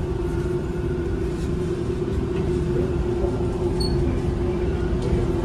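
TTC subway train rolling slowly along a station platform, heard from inside the car: a steady low rumble with a hum held on one pitch.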